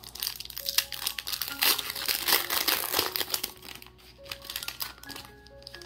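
Foil trading-card booster pack opened by hand, its wrapper crinkling in a dense run of crackles that thins out after about four seconds.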